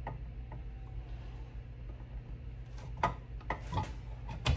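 A few light metallic clicks and taps as the aluminium halves of a two-stroke engine's crankcase are fitted together over the crankshaft, mostly in the last second and a half, over a steady low hum.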